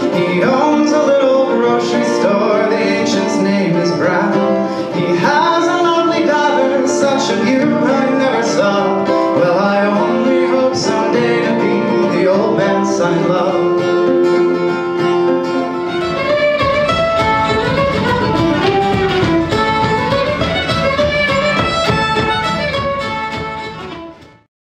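Live folk band music: singing over acoustic guitar, fiddle and drums. About two-thirds through the music changes to a fuller sound, and it fades out at the end.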